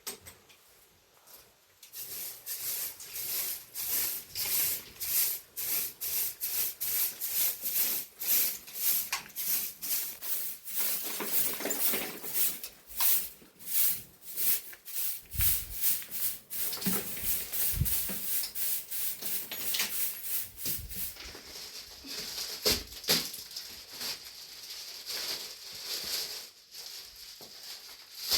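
Broom sweeping a hard floor in quick scraping strokes, about two to three a second, starting about two seconds in, with a couple of dull knocks midway. Near the end the strokes thin out over a steadier hiss.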